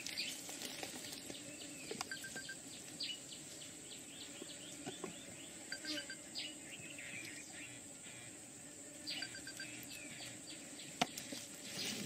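Insects droning steadily at a high pitch, with small birds chirping in short, repeated notes. A single sharp click about eleven seconds in.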